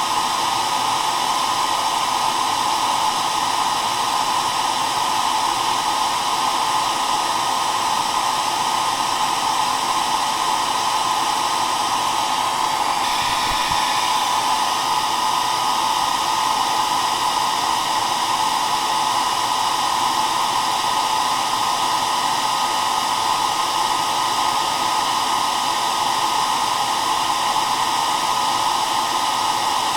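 Hair dryer running steadily: a constant rush of air centred in the middle range, with faint steady tones from the motor.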